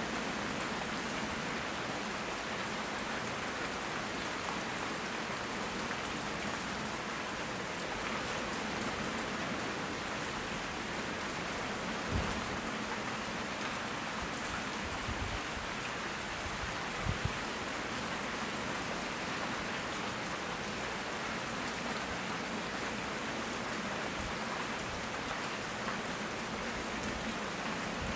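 Steady heavy tropical rain falling and pattering on surfaces, recorded on a smartphone microphone, with a few brief soft low thumps around twelve and seventeen seconds in.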